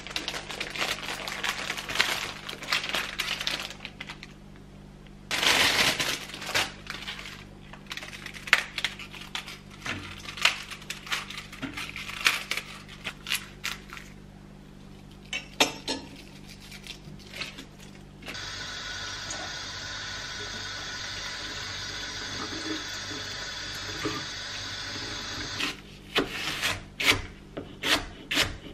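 Kitchen food-prep sounds: knife and vegetable handling with scattered clicks and rustling, a steady rushing noise for several seconds past the middle, then a cleaver chopping leek on a wooden cutting board, about three quick strokes a second near the end.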